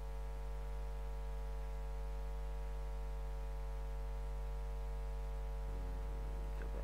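Steady electrical mains hum: a low buzz with a ladder of overtones, unchanging throughout.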